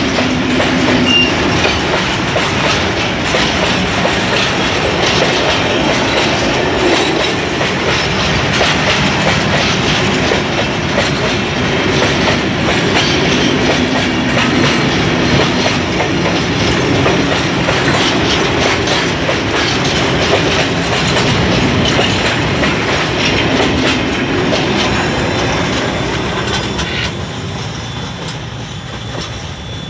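Freight train of oil tank cars rolling past close by: a steady wheel-on-rail rumble with clickety-clack at the rail joints. The sound fades over the last few seconds as the end of the train passes and moves away.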